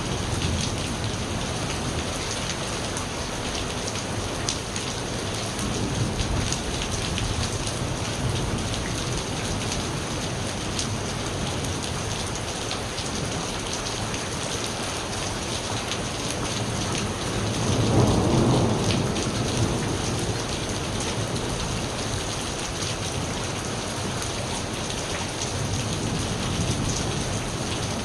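Steady heavy rain falling on surfaces, with a roll of thunder that swells about two-thirds of the way through and rumbles away over a few seconds.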